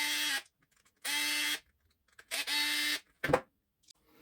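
Cordless electric screwdriver running in three short bursts of about half a second each, backing out the screws that hold the motor housing of a cordless lawn mower. A sharp knock follows about three seconds in.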